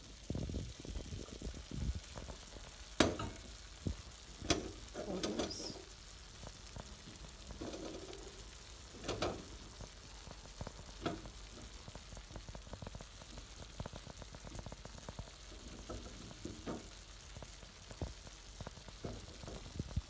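Chicken, onions and raisins sizzling in a stainless steel pan, with a few sharp clicks and soft knocks as green olives are set in among them.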